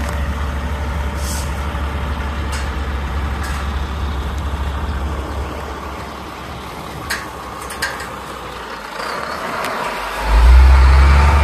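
Large diesel truck engine running steadily with a deep rumble, with a few brief sharp hisses and clicks. About ten seconds in the engine gets much louder.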